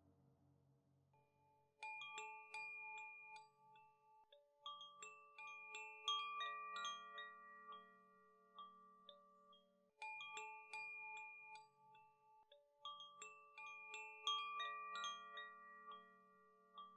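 The last of a gong's low ring fades out, then a gentle melody of bell-like struck mallet notes begins about two seconds in, each note ringing on. The same short phrase plays again about eight seconds later.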